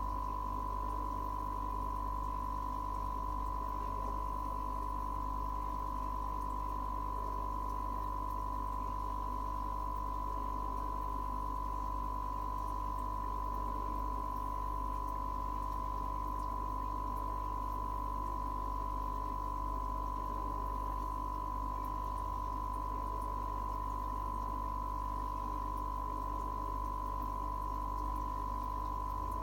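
A steady, unchanging high tone with a low hum beneath it.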